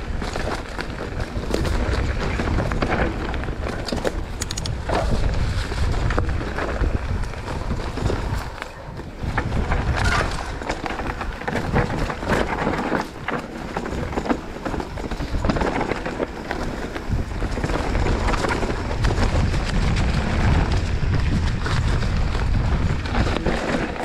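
Mountain bike ridden down a dirt woodland trail: wind buffeting the camera microphone as a steady rumble, with tyre noise and frequent knocks and rattles from the bike over bumps.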